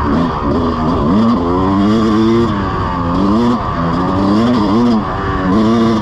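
Dirt bike engine under way, its pitch climbing under throttle and dropping back several times as the rider accelerates and rolls off or shifts, with wind rushing over the microphone.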